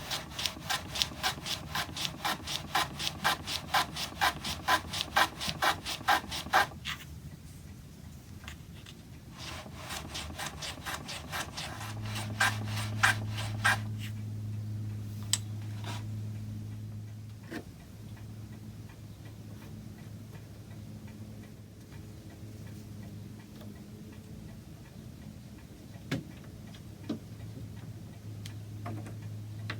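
Wood being sawn by hand in two bouts of quick, even back-and-forth strokes, about three or four a second, the second bout stopping about fourteen seconds in. A low steady hum follows, with a few light knocks.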